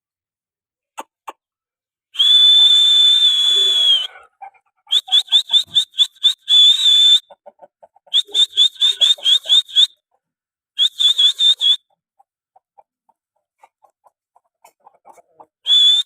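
A shrill whistle: one long steady blast of about two seconds, then three runs of rapid short toots, about six or seven a second, and a short blast near the end.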